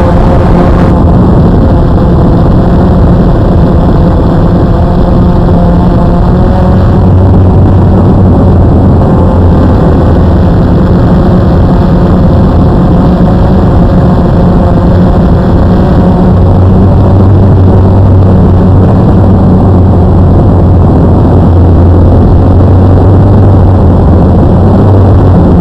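Blade QX2 AP quadcopter's electric motors and propellers whirring loud and close, heard from the drone's own onboard camera, under a noisy rush of air. A lower hum comes in about seven seconds in, drops out, and returns from about sixteen seconds as the throttle changes.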